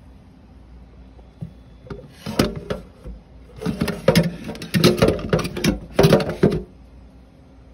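Water splashing over tomatoes in a colander, in several loud bursts of patter and clatter in the middle of the stretch.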